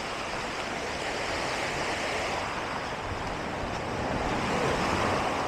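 Ocean surf washing onto the beach, a steady rush that swells a little louder near the end.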